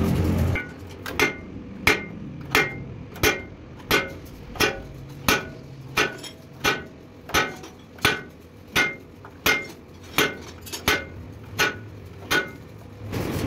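Hand hammer striking metal in a steady series of about seventeen evenly spaced blows, roughly three every two seconds. Each blow rings briefly with a clear metallic tone.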